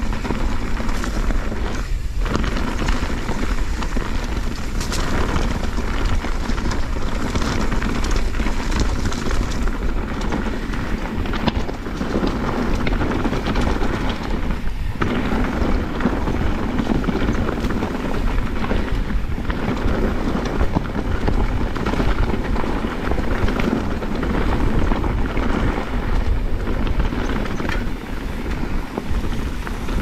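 Mountain bike descending rough dirt singletrack at speed: wind rushing over the GoPro's microphone and tyres rumbling over dirt and rocks, with frequent clatter from the bike over bumps.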